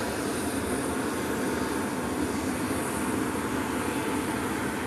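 Steady aircraft engine noise on an airfield: a constant rushing drone with a faint high whine above it, unchanging throughout.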